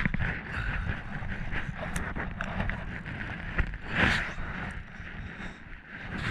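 Wind rumbling on the microphone in a small boat, with scattered light clicks and knocks and a brief louder rush of noise about four seconds in.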